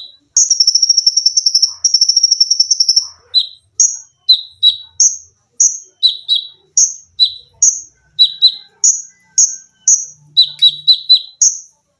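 Konin songbird singing: first a fast, buzzing 'sewing machine' trill in two stretches, then a run of sharp chirps, each a high note dropping to a lower one, about two a second, coming faster near the end.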